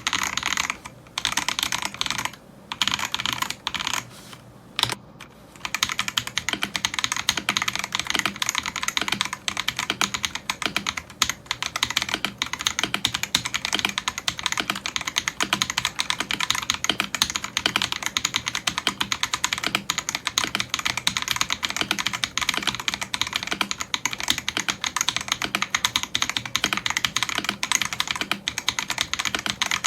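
Typing on an Ajazz AK992 gasket-mount mechanical keyboard with PBT keycaps. A few short runs of keystrokes with pauses between them, then fast continuous typing from about six seconds in.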